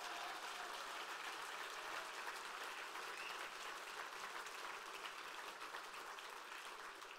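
Audience applauding: a steady, even wash of clapping that eases off slightly near the end.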